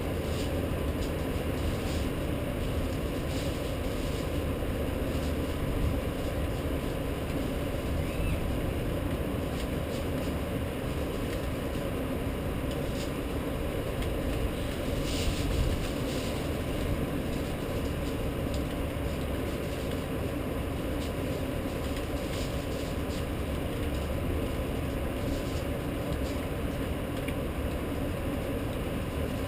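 Steady low rumble and hiss of a city during a rainstorm, with a faint steady hum and a few faint clicks.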